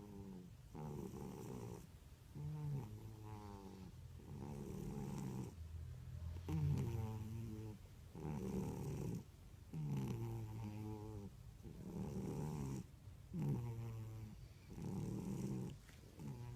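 Pet cat snoring: a pitched snore on each breath in and out, about one a second in an even rhythm.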